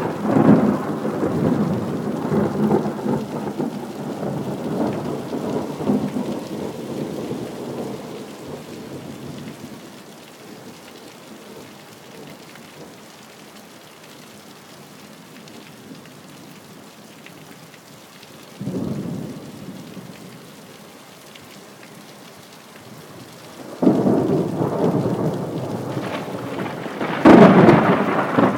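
Thunder rumbling over steady rain. A long peal fades away over the first several seconds, a short low rumble comes about two-thirds of the way in, and a new peal builds near the end to its loudest crack.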